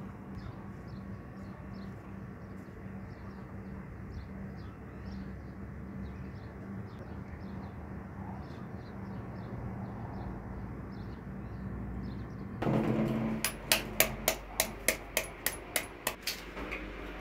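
A steady low hum with faint high chirps, then about a dozen sharp taps at roughly four a second, an egg being knocked against a hard edge to crack it.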